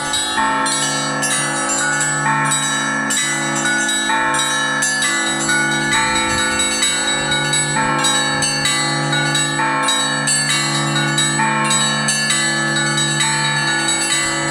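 Russian Orthodox church bells being rung by hand: a deep bell sounds about every two seconds under a quick, rhythmic pattern of smaller, higher bells, all ringing on over one another.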